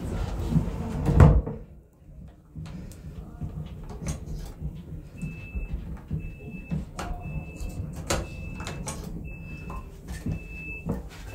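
Toilet sliding door of a Stadler FLIRT train pulled shut by its handle, ending in a loud thud about a second in. From about five seconds in, a high electronic beep repeats about once every 0.7 seconds, with small clicks among the beeps.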